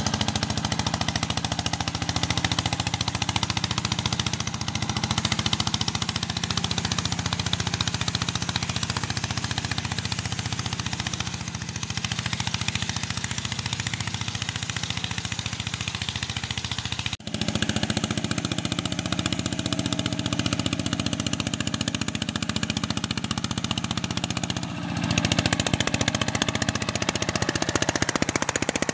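Single-cylinder diesel engine of a two-wheel walking tractor running steadily and loud under load as it pulls a disc plough through soil. The sound drops out briefly about 17 seconds in and again about 25 seconds in.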